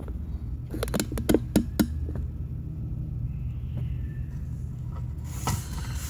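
Steady low rumble of background noise, with a handful of sharp clicks about one to two seconds in.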